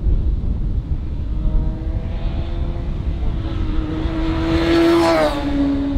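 Classic racing superbike's engine approaching under acceleration and passing close by. Its pitch climbs steadily and its sound grows loudest about five seconds in, then the pitch drops as it goes past.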